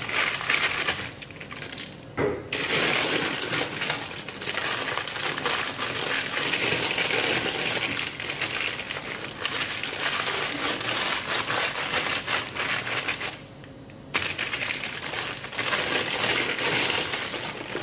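Thin polythene sheet crinkling and rustling continuously as hands lift it and roll it around soft besan dough. It briefly falls quieter twice, once near the start and once about three-quarters through.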